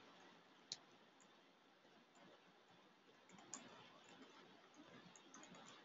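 Near silence with faint computer keyboard keystrokes: a single click about a second in, then a scattered run of light taps in the second half.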